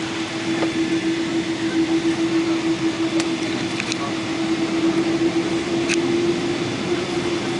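Boeing 777-200ER passenger cabin while the airliner waits on the ground for takeoff: a steady hum of the running engines and cabin air with one constant tone, and a few faint clicks about halfway through.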